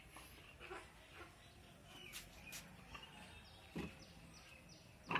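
Faint outdoor ambience with small birds chirping, including a run of short falling chirps about three and a half seconds in. There are two brief dull knocks, one near four seconds and one near the end.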